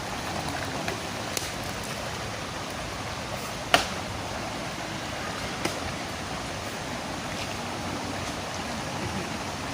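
Steady rush of flowing river water, with a sharp knock about four seconds in and a fainter one a couple of seconds later.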